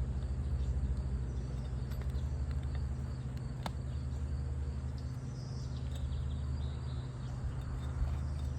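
Steady low hum outdoors, with a sharp click a little past a third of the way through and another near the end.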